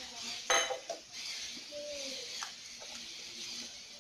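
Kitchen things handled on a granite countertop: one sharp clink about half a second in, then a smaller one and faint handling noises. A bird calls faintly in the background.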